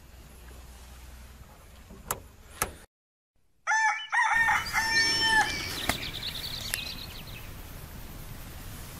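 A rooster crowing, a long held cock-a-doodle-doo starting about four seconds in, with fainter high bird calls trailing after it. Before it there is a low steady rumble with two sharp clicks, then a moment of dead silence.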